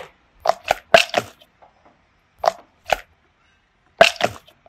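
Blue squishy rubber spider toy squeezed by hand, giving short sharp crackly squelches, mostly in quick pairs, with quiet gaps between them.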